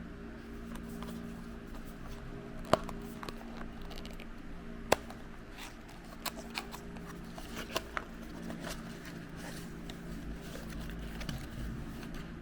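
Small plastic toys and their packaging being handled: scattered clicks and crinkles, with two sharp clicks about three and five seconds in, over a steady hum.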